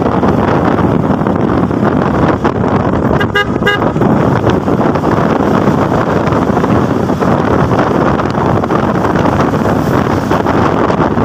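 Steady wind rush over the microphone and road noise from a motor scooter under way, with a vehicle horn giving one short toot a little over three seconds in.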